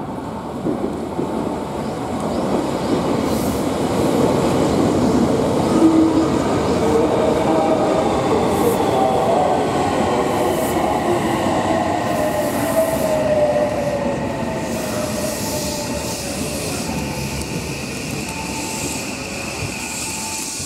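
Odakyu 3000-series electric train running into the platform: wheels rumbling over the rails, with the whine of its IGBT VVVF inverter and traction motors sliding steadily down in pitch as the train brakes.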